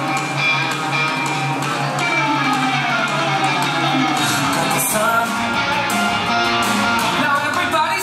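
Upbeat music with guitar and singing; the low pulsing bass drops out about halfway through.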